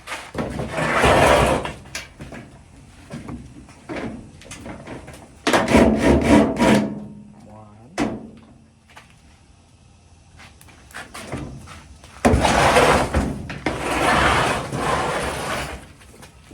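Sheet-metal dryer cabinet being taken apart by hand: three stretches of scraping and rubbing as parts are worked loose and slid, with scattered clicks and knocks between them.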